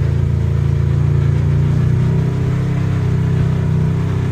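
Side-by-side UTV engine running at low speed, a steady drone that picks up slightly in pitch about halfway through.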